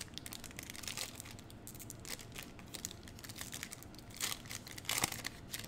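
Foil wrapper of a 2021 Panini Prizm basketball trading-card pack being torn open and crinkled by hand, a run of small crackles with louder rips about four and five seconds in.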